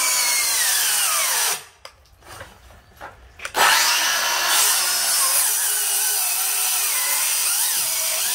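Craftsman V20 cordless 7-1/4-inch circular saw crosscutting a thick, dense wooden beam at full depth. The motor's pitch drops and it stops about one and a half seconds in. About two seconds later it starts again and runs on through the cut.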